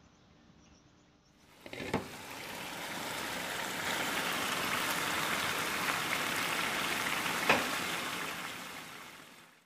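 Curry gravy simmering and sizzling in a frying pan: a steady bubbling hiss that starts about a second and a half in and fades away at the end, with a sharp pop about two seconds in and a louder one near the end.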